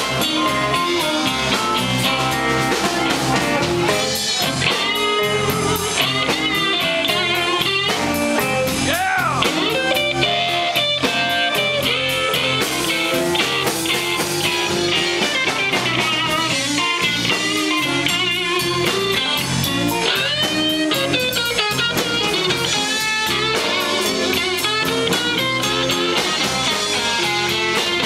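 Live electric blues band: an electric guitar plays lead lines with bent notes over electric bass and a drum kit.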